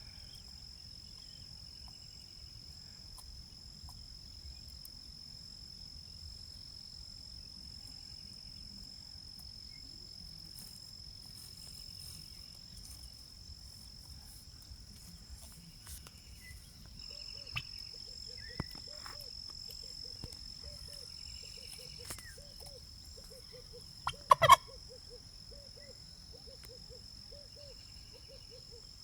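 A turkey gobbles once, short and loud, about two-thirds of the way in, over soft clucking that repeats about twice a second from a little past halfway. A steady high insect buzz runs underneath.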